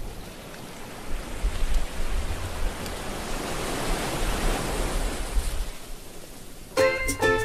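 Sea waves breaking and washing up a sandy beach, a steady rush of surf that swells in the middle and then eases. Music with plucked notes starts near the end.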